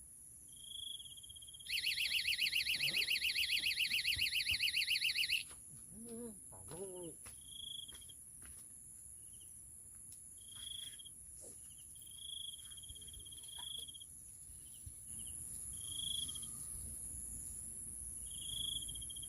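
Insects calling: a steady high whine throughout, a loud, fast pulsing trill for about four seconds starting about two seconds in, and short high chirps recurring every second or two.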